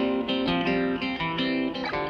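Background music: a plucked guitar playing a melody of quick, separate notes.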